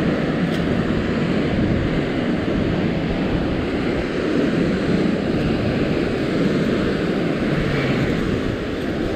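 Steady wind noise buffeting the microphone, mixed with the wash of ocean surf breaking against the cliff below.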